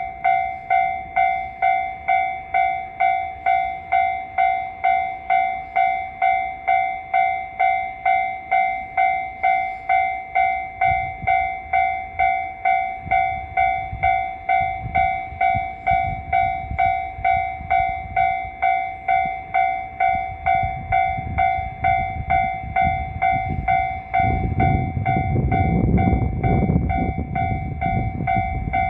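Japanese railway level-crossing alarm ringing as a steady repeating electronic ding, about two strikes a second. A train approaches under it from about a third of the way in and passes loudest near the end.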